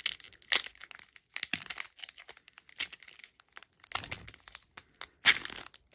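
Foil wrapper of a sealed hockey card pack being torn open and crinkled by hand: irregular crackles and rustles, with the loudest crackle about five seconds in.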